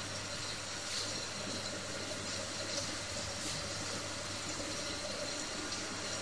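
Jet-type heat shrink tunnel running, with a steady whir from its hot-air blowers and conveyor over a constant low hum.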